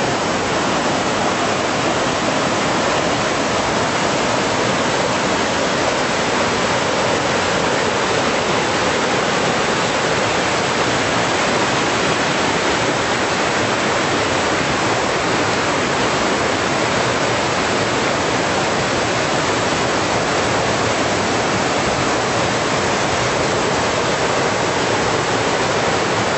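Steady, even rush of water, with no breaks or separate splashes.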